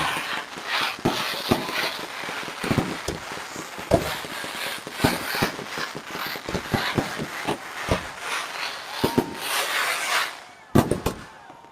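Fireworks bursting in quick succession: many sharp bangs at irregular spacing over a dense crackling haze and crowd voices. Near the end the haze falls away and a few separate bangs remain.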